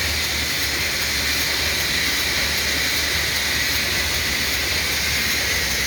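Oliver 58 offset printing press running steadily while printing cigarette paper: a continuous mechanical hiss and hum with faint regular ticking.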